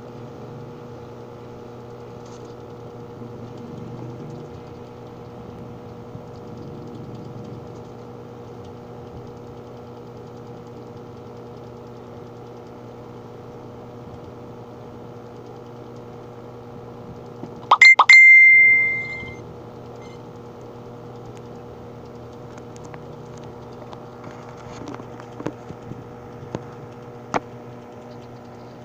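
A steady low hum throughout. About eighteen seconds in, a sharp knock is followed by a clear bell-like ring that fades over about a second and a half. A few faint taps come near the end.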